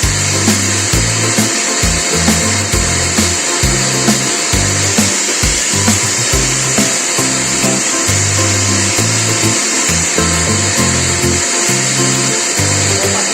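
Lifelong LLVC930 800-watt wet and dry vacuum cleaner motor running steadily, with a high, airy whine.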